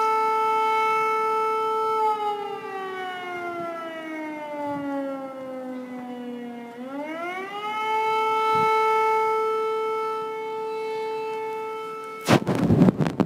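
Civil defence siren wailing on one steady pitch, then sliding down over about five seconds and climbing quickly back up to hold its pitch again. A brief loud burst of noise comes near the end.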